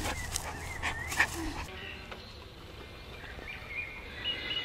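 A dog snuffling and panting at close range, with a few faint, thin, high calls over it.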